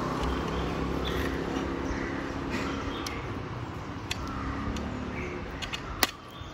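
A few small metal clicks from a quick-link tool working a bicycle chain's quick link, with one sharper click about six seconds in, over steady background noise. Birds chirp faintly.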